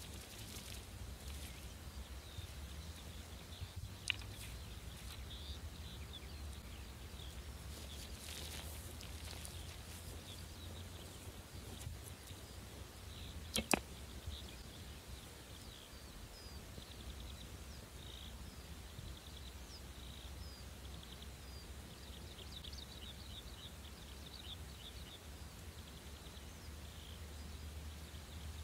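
A single sharp snap of a Grozer Assyrian composite bow (42 lb draw) as an arrow is loosed straight up, about halfway through. Behind it a steady low rumble and scattered high chirping.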